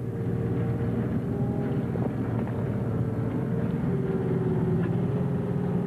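Tractor engine running steadily with a low drone, its note dipping slightly about four seconds in.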